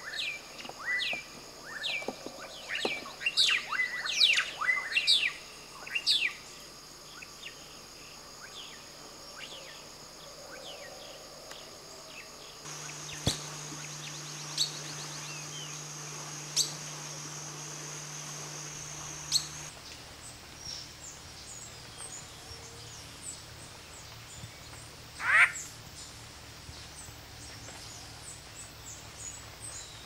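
Melodious blackbird singing: a quick run of loud, clear whistled notes sliding up and down, then scattered single sharp notes and one louder sweeping call later on.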